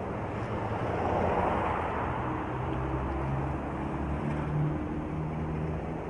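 Street traffic noise with a motor vehicle's engine hum; one vehicle passes with a swell about a second in.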